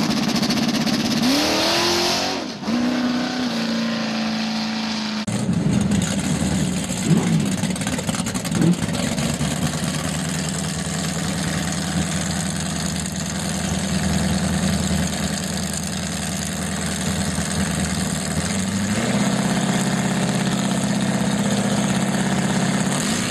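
Drag car engine running, revved in short rising blips in the first several seconds, then running steadily.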